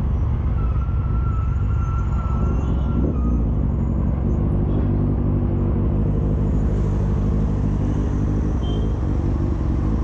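Motorcycle engine running under heavy wind rumble on the action-camera microphone as the bike slows to the kerb. About four seconds in, the engine settles into an even low-revving note. A thin high tone sounds briefly near the start.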